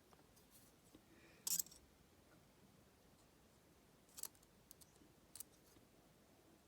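A few sharp little clicks and scrapes of small metal lock parts being handled, as the pins are taken out of a challenge padlock's core; the loudest comes about a second and a half in, and a small cluster follows near four to five and a half seconds.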